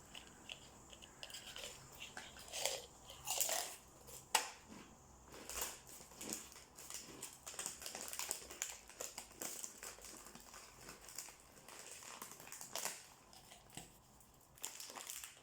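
Quiet, irregular rustling, scraping and light taps of cookie dough being handled and shaped on a tray, with a sharper click about four seconds in.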